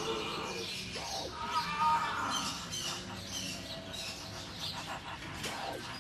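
High, wavering squealing cries and chirps whose pitch bends up and down, loudest in the first two seconds and thinning out after.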